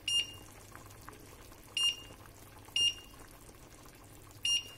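Constructa hob's touch control beeping four times, short electronic beeps a second or more apart, as the power is stepped down from 6 toward 3. Under them the pot of rice boils faintly.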